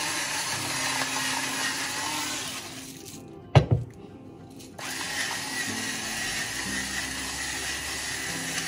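Electric spice grinder running, a steady whirring grind for about three seconds. It stops, there is a single loud thump, and the grinding starts again about a second later and runs on.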